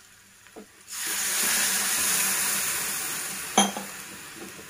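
A glass of water poured into a hot kadai of fried vegetables and ground masala oats: a sudden loud hiss and sizzle about a second in that slowly dies down, with one sharp clink a little later.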